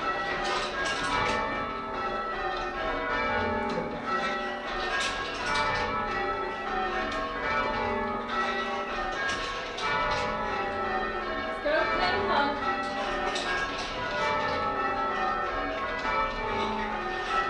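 Church bells being change-rung: a steady, continuous stream of overlapping bell strikes with long ringing tones, heard from the ringing chamber below the bells.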